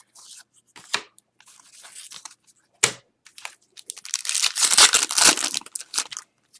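A trading-card pack's foil wrapper being torn open and crinkled, with a few sharp snaps. The loudest stretch of tearing and crinkling comes past the middle and lasts about two seconds.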